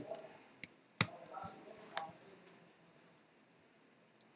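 A few sharp clicks on a computer, the loudest about a second in, with faint murmured voices between them.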